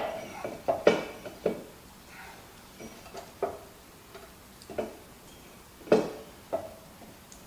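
Irregular metal knocks and clinks, about eight in all, as a rebuilt hydraulic lift cylinder is handled and worked into position in a skid steer's boom; the sharpest comes about six seconds in.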